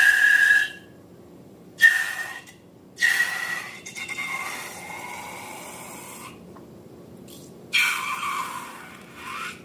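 Air escaping from the neck of a balloon in repeated bursts, each a hiss with a high squealing whistle. There are short bursts at the start and about two seconds in, a longer one from about three to six seconds, and another near the end.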